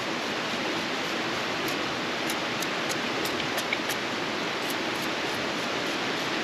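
Steady rush of a creek flowing over rocks, with a few faint high-pitched ticks.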